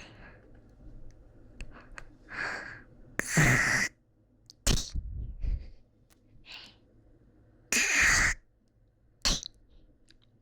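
A person hawking up from the throat and spitting ('kkak-tweh') close to the microphone, twice: each time a harsh rasping hawk of under a second, then a short sharp spit about a second later.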